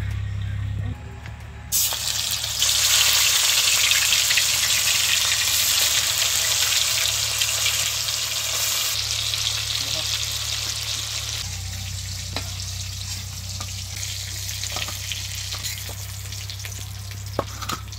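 Marinated chicken pieces frying in hot oil in a wok. A loud sizzling hiss starts suddenly about two seconds in as the pieces go into the oil, then eases off in the second half as they fry.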